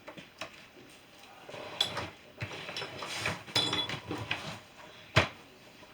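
Objects being handled and set down: light clicks, clinks and rustling, then one sharp knock about five seconds in.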